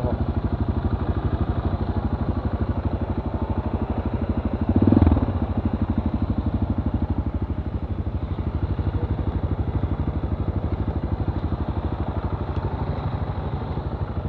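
Enduro motorcycle engine idling with an even, fast beat, with a louder swell about five seconds in.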